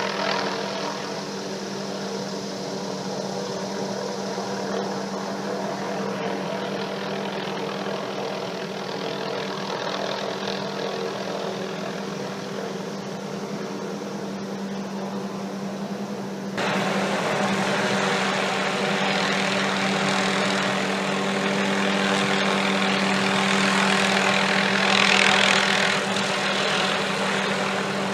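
Helicopter running steadily, a drone holding one pitch with a hiss over it. About two-thirds of the way through it abruptly gets louder and brighter.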